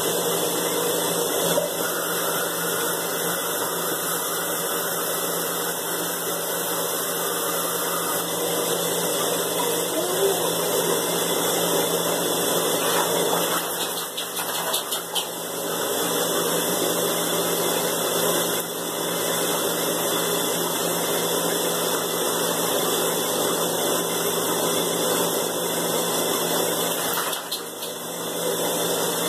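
Water running steadily from a bathtub tap, the sound dipping and changing briefly around the middle and again near the end.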